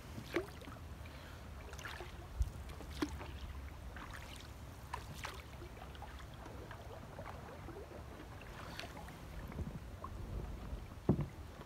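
Canoe being paddled with a wooden paddle through still water: soft strokes and drips, with a few sharp knocks of the paddle against the canoe, the loudest near the end.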